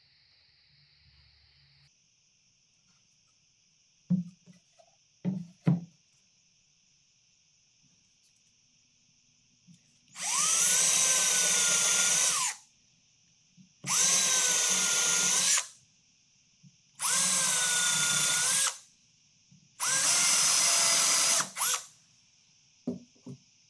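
Electric drill running in four bursts of about two seconds each, its pitch rising as the motor spins up, holding steady, then dropping as it stops. A few sharp knocks come before the first burst and after the last.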